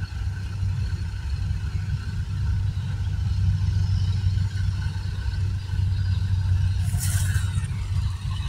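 Kubota DC-70G Plus rice combine harvester running steadily, its engine drone mixed with a steady mechanical whine. A brief hiss comes about seven seconds in.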